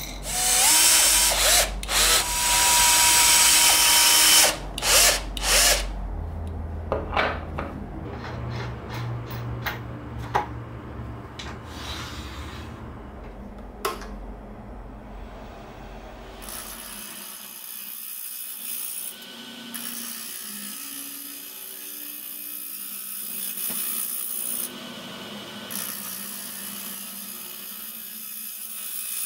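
Power drill driving screws to fix a steel lathe faceplate to a wood blank, in several loud bursts with a whine. From about halfway, the lathe runs with the large blank spinning, a steady hiss.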